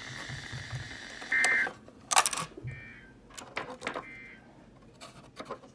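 Emergency Alert System end-of-message data bursts: three short two-tone digital bursts, each about a third of a second long and roughly a second and a half apart, the first loud and the other two faint, signalling the end of the alert test. Sharp clicks and crackles fall between them, the loudest just after the first burst.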